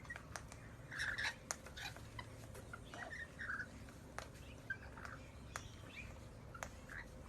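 Small birds giving short, scattered chirps and squawks, with a few sharp clicks among them.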